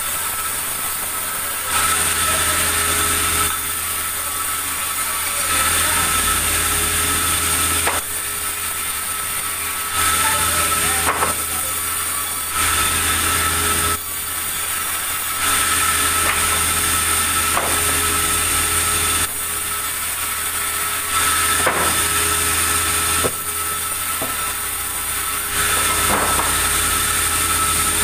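Sawmill saw running and cutting timber: a steady mechanical drone with fixed tones and a low hum, getting louder and quieter in abrupt steps every couple of seconds.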